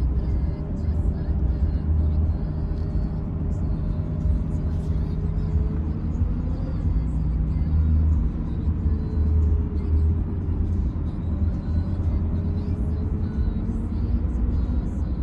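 Steady low motor-vehicle rumble, with engine tones slowly rising and falling in pitch over several seconds.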